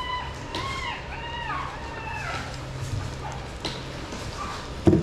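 Shih Tzu puppy whining, a quick run of short, high cries over the first couple of seconds, then fainter. A loud thump near the end.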